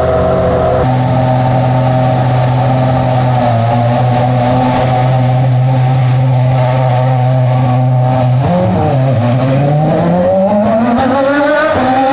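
Ferrari racing car's engine holding a steady note for several seconds, then dipping briefly and rising steadily in pitch as it accelerates, with a gear change near the end.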